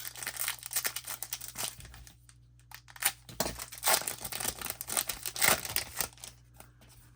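A trading card pack's wrapper being torn open by hand and crinkling, first as a quick run of crackles for about two seconds, then in a few separate bursts, dying away near the end.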